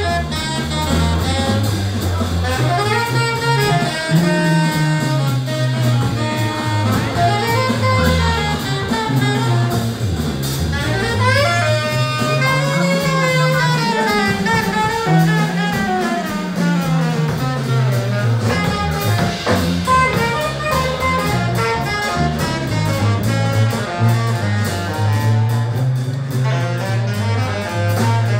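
Live funky Latin-jazz brass band playing: saxophones carry the melody over a sousaphone bass line, drum kit and hand drum, with a run of bending, sliding sax notes about halfway through.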